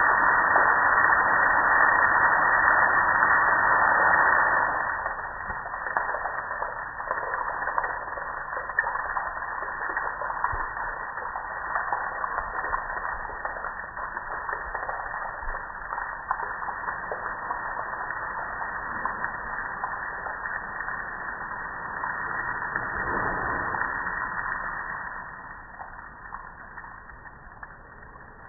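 Water spraying onto a soaped-up gas grill, cutting off about four seconds in; after that, water and suds keep trickling and dripping off the grill with many small irregular ticks.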